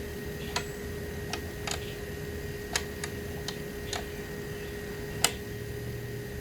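Wrench clicking against a wheelbarrow's bolts as they are tightened: about eight short, irregular clicks, the loudest about five seconds in, over a steady faint hum.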